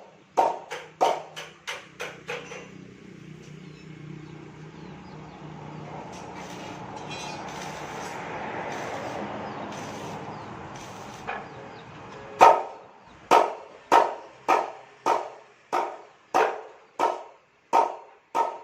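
A dog barking over and over, about two barks a second, for a couple of seconds. After a break filled by a steady hiss, the barking starts again about twelve seconds in and keeps on.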